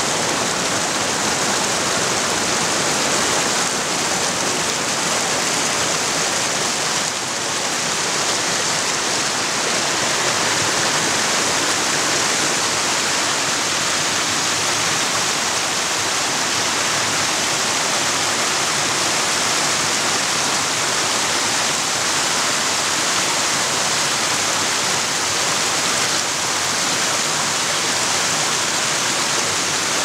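Rocky mountain stream rushing and splashing over boulders in small cascades, a steady, even rush of water.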